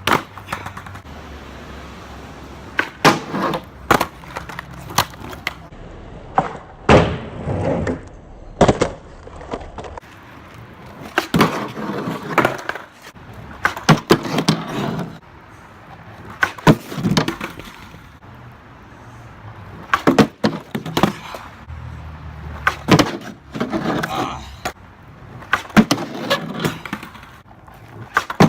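Skateboard being ridden through repeated trick attempts: stretches of wheels rolling broken by sharp pops and clattering impacts of the board and trucks landing or hitting the ground, about a dozen times.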